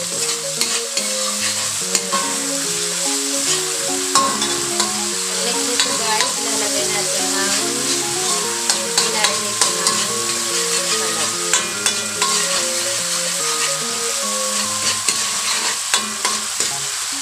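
Tomato sauce frying and sizzling in an aluminium wok as it is stirred with a ladle, with frequent short clicks and scrapes of the ladle against the pan. Background music with held notes plays underneath.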